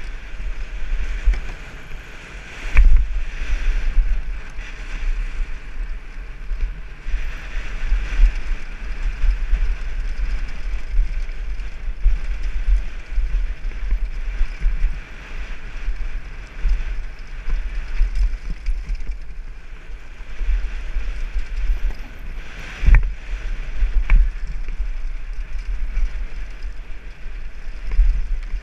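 Downhill mountain bike rattling over a rocky trail, with wind rushing over a helmet-mounted camera's microphone. Two hard knocks stand out, about 3 seconds in and near 23 seconds, as the bike hits rocks.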